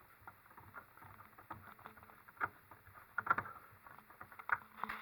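Screws being driven into the plastic hood frame of a 3D printer kit, with irregular small clicks, scrapes and knocks as the screwdriver and parts are handled; the loudest knocks come about three and four and a half seconds in.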